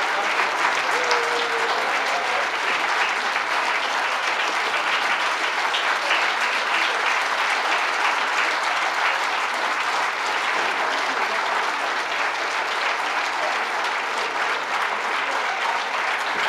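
A large audience applauding steadily in a standing ovation, many hands clapping densely together without a break.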